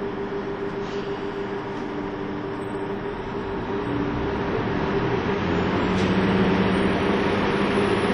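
Running sound of a KiHa 25 diesel railcar, heard from inside the car: a steady engine drone and rail rumble that grows louder about four seconds in, with a faint high whine rising near the end.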